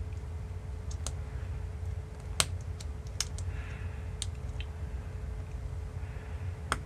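Small sharp clicks and taps from fingers working the antenna's tiny U.FL connector onto its socket on the Caddx Vista's circuit board. There are about six separate clicks, the loudest about two and a half seconds in, over a low steady hum.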